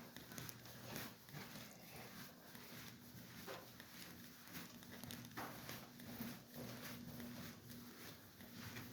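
Faint footsteps walking at a steady pace, about two steps a second, with a faint steady hum underneath.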